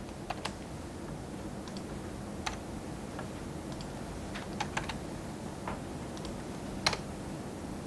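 Computer keyboard keys tapped one at a time, a dozen or so separate keystrokes at an uneven pace, over a steady low hum.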